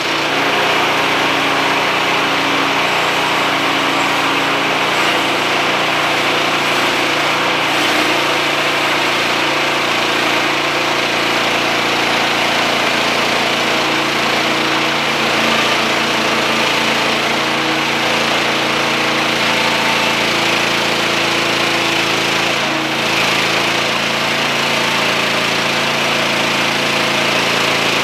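Portable band sawmill running steadily, its engine and band blade working through a black walnut log, with a brief dip about 23 seconds in.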